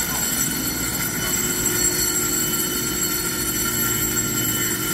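Steady electric hum with several fixed whining tones from an EMU3000 electric multiple unit standing at the platform, its onboard equipment running.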